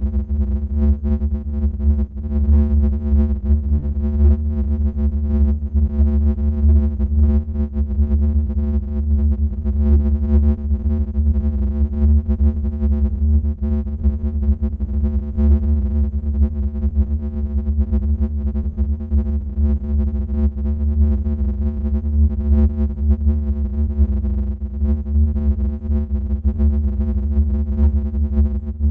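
Dark, steady synthesizer drone with a heavy low bass and held overtones, a horror-style ambient sound effect that runs on without a break.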